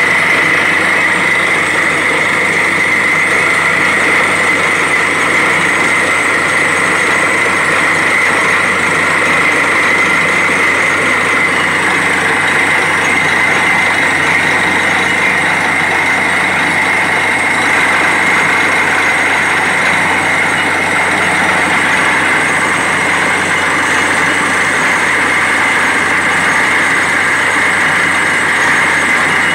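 Truck-mounted borewell drilling rig running steadily while it drills: a loud, constant machine noise with a steady high whine.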